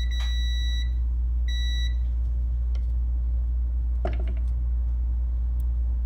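Multimeter continuity beeper sounding as the probe bridges a key-fob switch's contacts, showing that the circuit is closed. It gives a steady high beep that cuts off just under a second in, then a second short beep about half a second later. A steady low hum runs underneath.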